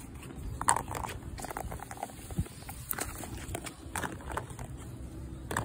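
Irregular footsteps on a concrete sidewalk, a handful of sharp steps over a low steady rumble.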